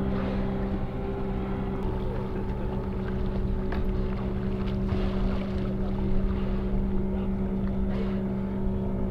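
Boat engine running steadily, an even low hum that holds one pitch throughout.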